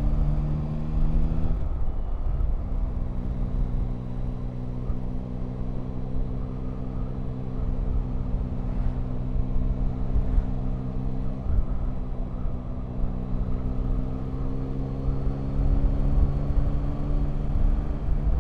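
Motorcycle engine pulling steadily on the move, with wind rumbling low on the microphone. About two seconds in, the engine note drops and briefly breaks off as a gear is changed up. It then picks up again lower and rises slowly as the revs climb.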